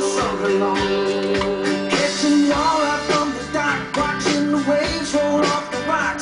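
Background music with guitar and a singing voice over a steady beat.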